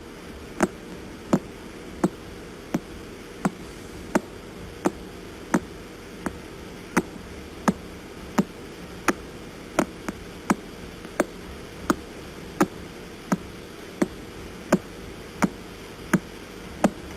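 Pulsar radio signal played as sound: sharp clicks at an even beat of about one every 0.7 seconds over a steady hiss. Each click is one pulse from the spinning neutron star, and the beat sounds like knocking on a door.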